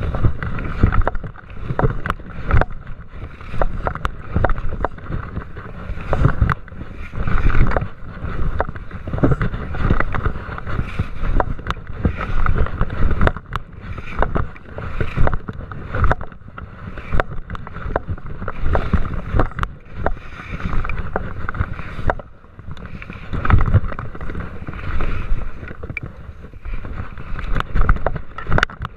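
Downhill skis scraping and swishing over packed snow in surges about once a second as the skier turns through moguls, with wind rumbling on the action camera's microphone and many sharp knocks.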